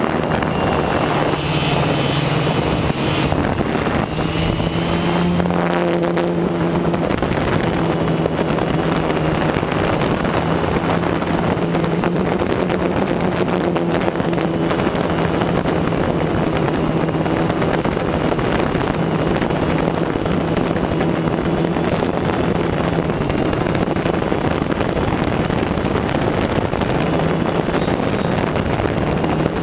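An FPV drone's electric motors and propellers buzzing in flight, recorded on board: a steady hum over a dense rush of air, its pitch shifting slightly with the throttle.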